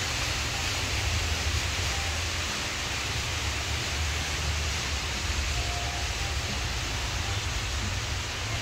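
Small indoor waterfall splashing steadily down into a pond, an even rush of falling water.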